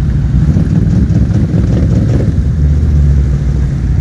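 Can-Am Renegade XMR 1000R ATV engine idling close by, a steady low rumble that swells briefly about two and a half seconds in.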